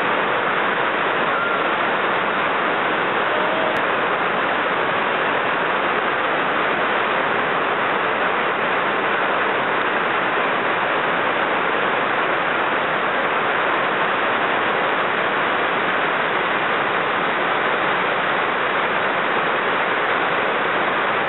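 Waterfall cascades rushing over rock steps: a steady, even roar of falling and churning water.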